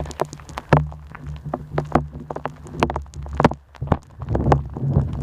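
Blizzard wind buffeting the microphone with a low rumble, while wind-driven snow ticks and patters irregularly against it.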